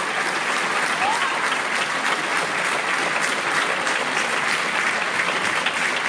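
Audience applauding steadily, many hand claps merging into one continuous sound.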